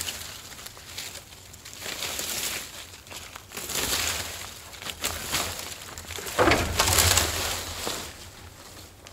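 Garden rake scraping and dragging dry leaves and twigs across the ground in repeated strokes, with a crunch at each pull. The loudest pull comes about six and a half seconds in.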